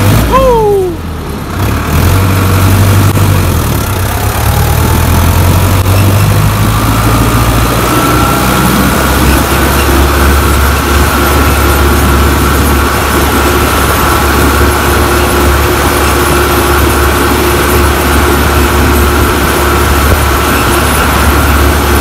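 Sonalika tractor's turbocharged diesel engine running under way, with the turbo whistling over the low engine drone. A short falling whistle comes right at the start; from about six seconds in a whistle rises and then holds steady and high.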